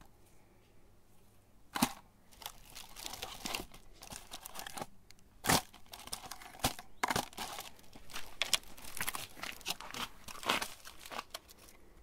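Wrappers being peeled off mini ice cream cones by hand: irregular crinkling and tearing, with a couple of sharp loud cracks about two and five and a half seconds in.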